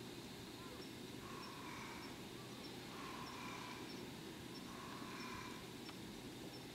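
Short, repeated bird calls, about one a second, over a faint low outdoor rumble.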